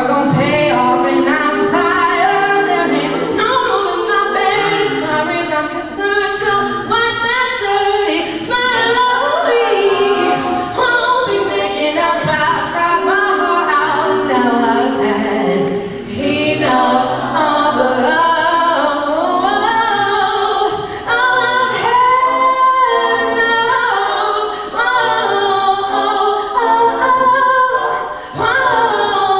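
Mixed-voice a cappella group singing: a woman sings the lead into a microphone over sung backing harmonies and a low sung bass line, with no instruments.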